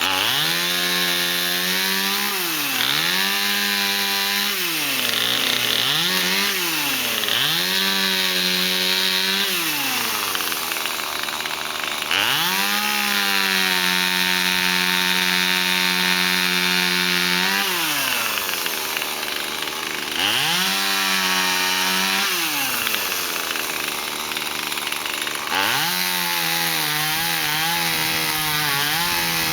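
Two-stroke chainsaw cutting a fallen peppermint tree: the engine revs up to full throttle and holds through a cut, then drops back, over and over, with one long cut in the middle and unsteady revving near the end.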